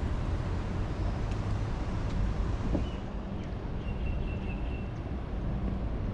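Steady outdoor background rumble, heavy in the low end, with no distinct events; a faint short high chirp sounds about four seconds in.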